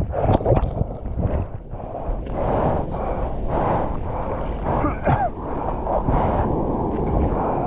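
Ocean surf breaking and washing ashore in surging swells, with wind rumbling on the microphone.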